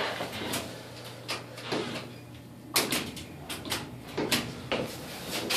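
A scatter of light clicks and knocks, handling noise from something being fiddled with, with a faint low hum under the first half.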